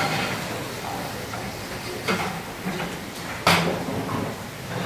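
Kitchen clatter on stainless-steel work counters: utensils and containers being handled over a steady background hum, with a sharp knock about two seconds in and a louder clatter about three and a half seconds in.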